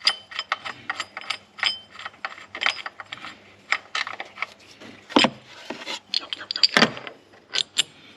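Metal hand tools and small engine parts clinking and clicking irregularly, with louder knocks about five and seven seconds in, as a socket-undone pulley bolt and its parts are handled.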